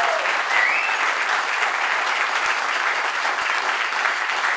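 Audience applauding steadily, with a brief high voice call about half a second in.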